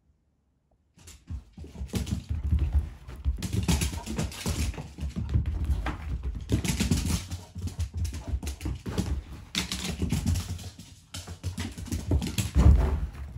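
A beagle moving about on a hardwood floor, its claws clicking and scraping, with dull low thumps. Starts about a second in after near silence.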